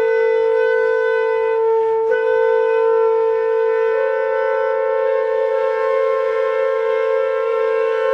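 Sound installation's instruments, set off by colored squares lifted on a hair dryer's airstream, holding a steady chord of several sustained tones over one strong low note. The upper notes change about two seconds in, with a faint click, and shift again around four seconds in.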